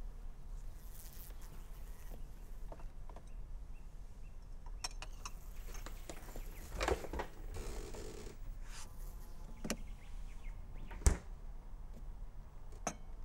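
Scattered light knocks and clicks of small household objects being handled and set down, with one sharper knock about eleven seconds in, over a low steady hum.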